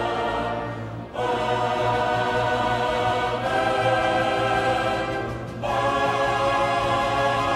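Choral background music: voices holding long sustained chords, the harmony moving to a new chord about every two seconds.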